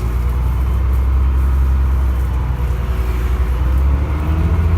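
A London double-decker bus's diesel engine pulling under load, heard from inside the bus as a deep, steady drone that swells in at the start, with a faint gliding whine above it.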